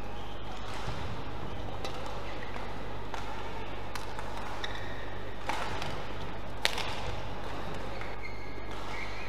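Badminton rally: about five sharp cracks of racket strings hitting the shuttlecock, roughly a second apart, the loudest about two-thirds of the way through. Short squeaks of court shoes over a steady hall hum.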